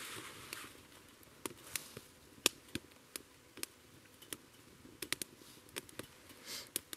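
Twigs burning in a small Bushbox XL titanium wood-burning stove, crackling with irregular sharp snaps, a couple each second.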